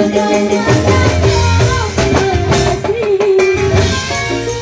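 Live dangdut band music: a held, bending melody line over drum strokes and a bass line.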